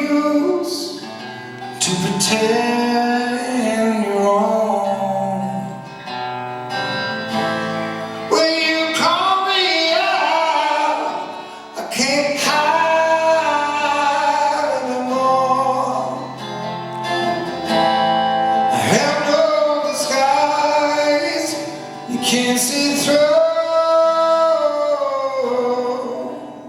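Live solo music: an instrumental intro with struck chords ringing out every few seconds.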